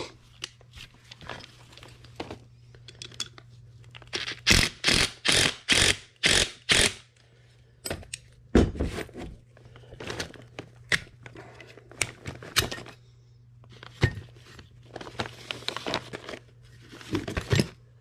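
Hands working on a removed blower motor and its mounting band on a plastic drop sheet: rustling plastic, metal clinks, knocks and scrapes, with a quick run of about six rasping strokes a few seconds in.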